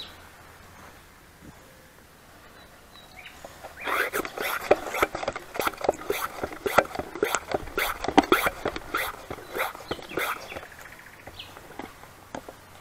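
An animal close by making a quick, irregular run of short noises, starting about four seconds in and lasting some six seconds.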